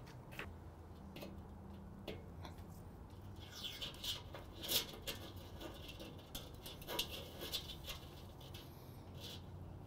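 Faint handling noises at a charcoal kettle grill: scattered light clicks and taps, with a stretch of scratchy rustling in the middle and the sharpest click about five seconds in, over a low steady hum.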